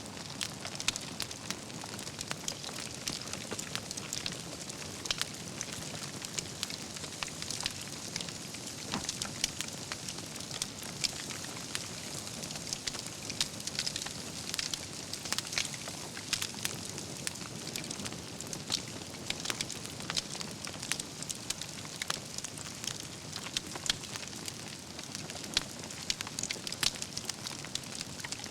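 Wood fire burning, with a steady hiss and frequent irregular crackles and sharp pops as the logs burn.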